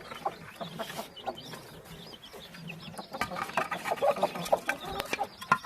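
A hen clucking softly while a large brood of chicks peep continuously, many short high chirps overlapping, with a few sharp clicks near the end.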